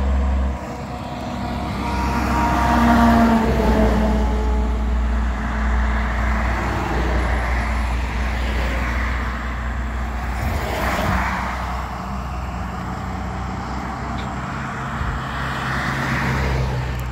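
Road traffic passing by one vehicle after another. The loudest pass comes a few seconds in, its engine note falling as it goes by. Another swell of tyre noise rises and falls about two-thirds of the way through, over a steady low rumble.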